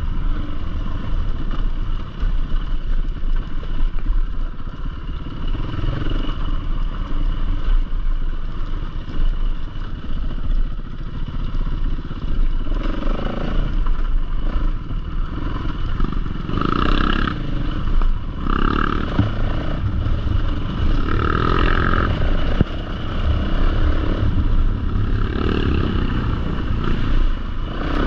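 Enduro dirt bike engine running while being ridden along a rough trail, the engine note rising and falling, with clattering from the bike over the ground.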